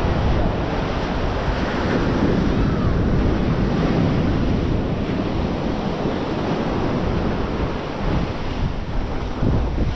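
Ocean surf washing onto a sandy beach, with wind blowing across the microphone.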